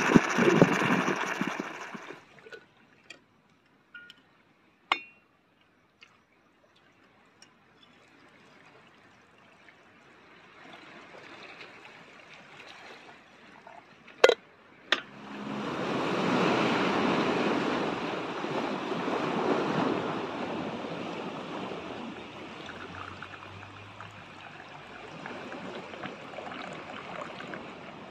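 Two sharp glass clinks about 14 seconds in as brewed coffee is poured from a moka pot into a glass carafe, followed by a steady wash of pouring liquid and sea surf.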